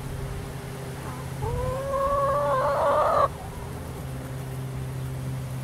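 A chicken gives one drawn-out call of about two seconds, rising at the start, holding, then stopping abruptly, over a steady low hum.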